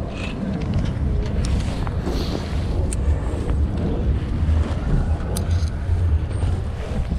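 Wind buffeting the microphone: a heavy, uneven low rumble, with a few faint clicks.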